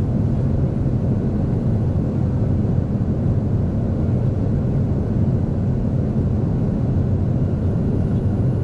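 Steady low rumble inside the cabin of a Boeing 757-200 parked at the gate: the airflow of the cabin air-conditioning, with no change in level or pitch.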